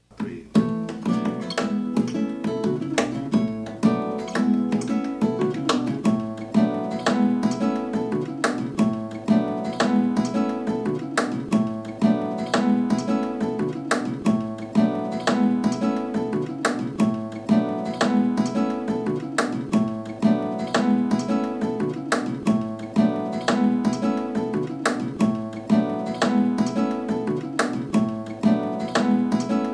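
Acoustic guitar music, strummed and plucked in a steady rhythm, starting abruptly.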